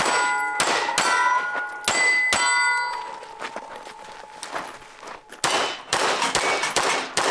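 Pistol shots in quick strings, each followed by the bright ring of struck steel targets, with a pause of about two seconds midway before a second string of shots and rings.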